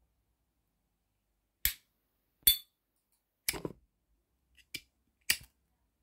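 Replica S.T. Dupont-style flip-top lighter's metal lid and ignition clicking: five sharp metallic clicks spaced about a second apart, the second with a brief ringing ping.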